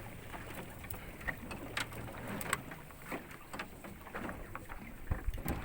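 Fishing boat's motor running at low speed, a steady low hum, with scattered sharp clicks and knocks over it, the loudest cluster near the end.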